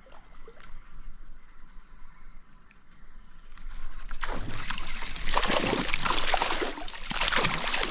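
Stream water sloshing and splashing, growing much louder about four seconds in.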